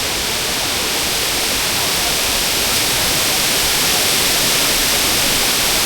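Tall jungle waterfall pouring, a loud, steady rush of falling water.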